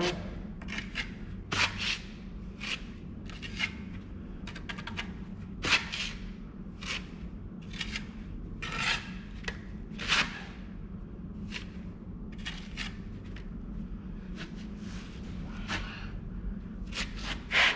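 Steel brick trowel scraping and pressing mortar into the joint at the end of a sill brick: a run of short, irregular scrapes with sharper strokes now and then.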